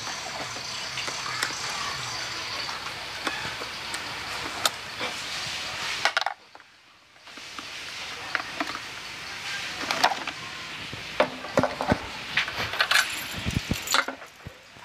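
Scattered metallic clinks and knocks of a hand tool and terminal bolt as a motorcycle battery's positive terminal is undone, with a break of about a second near the middle.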